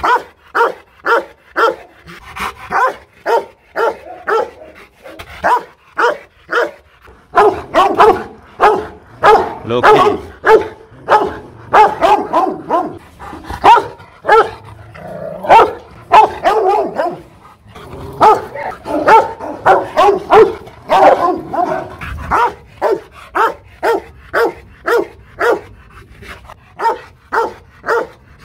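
Rottweiler barking hard and repeatedly, about two barks a second. From about a quarter of the way in until about three-quarters through, the barking comes thicker and overlapping, then returns to evenly spaced single barks.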